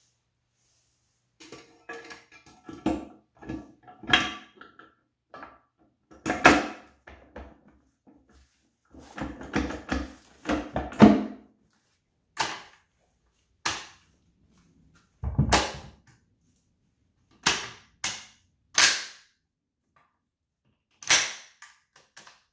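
Metal transmission parts clinking and clattering as they are handled against a Honda YS1 transmission's aluminium case, then about seven sharp single knocks spaced a second or more apart as an axle seal is tapped into the case with a rubber mallet.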